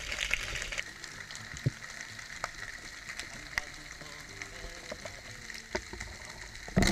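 Underwater ambience picked up by a camera in its housing: a steady crackle of scattered sharp clicks over a hiss, with a brief loud thump just before the end.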